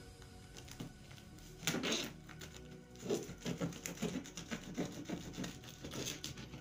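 Box cutter blade scraping along and slitting the packing tape on a cardboard box seam: a louder scrape about two seconds in, then a quick run of short scratchy rasps.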